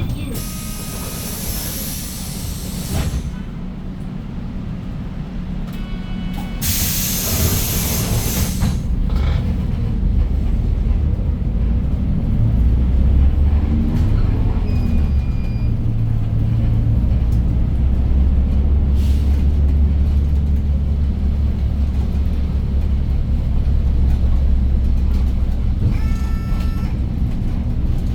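Hyundai New Super Aerocity city bus with a C6AF CNG engine pulling away from a stop. Two loud hisses of compressed air come in the first nine seconds. From about ten seconds in, the engine's low running grows as the bus gets under way, then holds steady.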